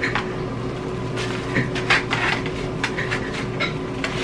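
Scattered soft rustles and clicks of plastic takeout containers and wrapping being handled at a table, over a steady background hum.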